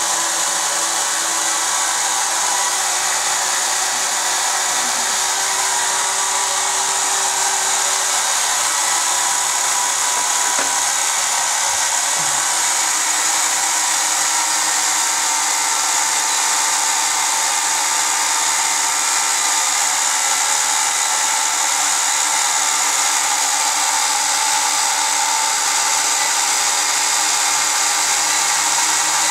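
WLtoys V262 quadcopter's four motors and propellers running steadily at low throttle: an even whir with several steady whining tones.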